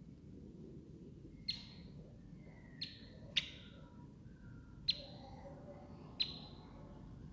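Baby birds chirping: five short, sharp chirps spaced a second or so apart, with fainter falling peeps between them.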